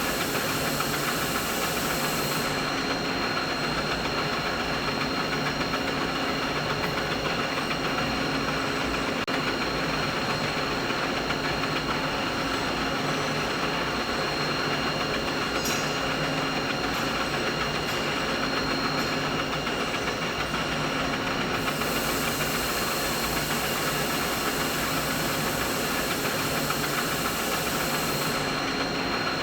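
Steady, unbroken machinery noise: a dense mechanical drone spread through the mid range, with a faint constant high whine. The thin top hiss drops away a couple of seconds in and comes back about two-thirds of the way through.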